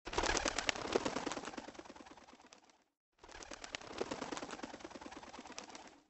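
Birds calling in a rough, crackly outdoor recording, which breaks off briefly about three seconds in and then resumes.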